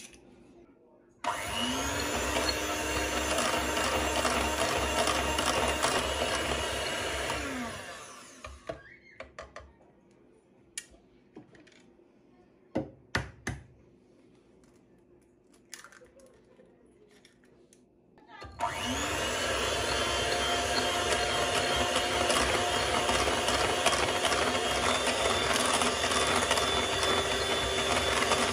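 A small electric kitchen appliance motor runs in two spells. It spins up about a second in, runs steadily and winds down after about seven seconds. After a stretch of light clicks and knocks, it starts again about two-thirds of the way through and keeps running.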